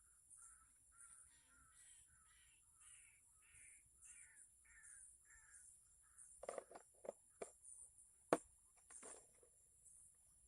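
Faint bird calls, repeated about twice a second, climbing in pitch and then falling away, stopping about six seconds in. Then come a few knocks and one sharp click, the loudest sound.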